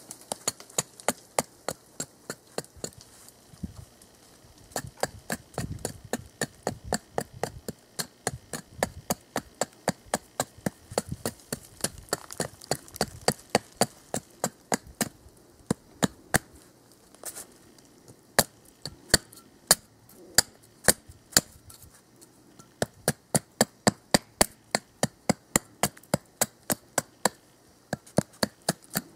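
Cold Steel Trail Hawk tomahawk chopping down along an upright split stick of dead wood to shave off kindling. Quick, light woody knocks come about two to three a second, in runs broken by a few short pauses.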